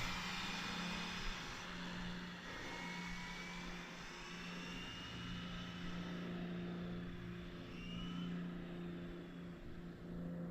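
Faint vehicle noise: a steady low hum with several thin high whines that glide down in pitch.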